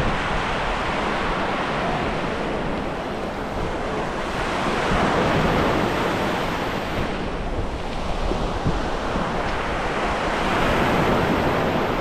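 Sea waves washing in over a stony shore, a steady wash of surf that swells twice, about five seconds in and again near the end.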